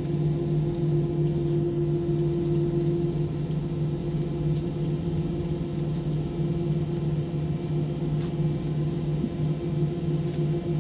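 Airliner cabin drone: the jet engines running at idle thrust while the plane taxis, heard from a window seat as a steady low hum with two held tones and no build-up of power.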